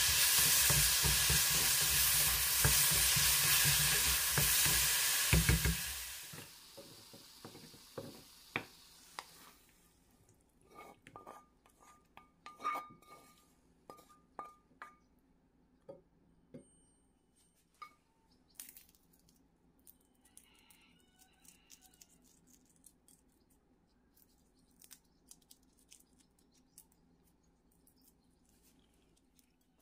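Vegetables sizzling in hot oil in a wok while a wooden spatula stirs them. About six seconds in the sizzle stops, and scattered light clinks and scrapes follow as the food is scraped out of the pan into a bowl.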